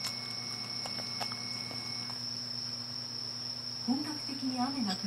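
A steady, high-pitched thin tone throughout, with a couple of faint clicks about a second in and a person's voice briefly near the end.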